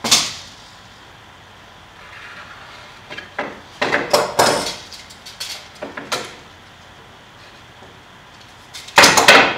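Wooden boards and hand tools handled on a workbench: a sharp knock at the start, a few short knocks and scrapes in the middle, and a louder run of knocks and scrapes near the end.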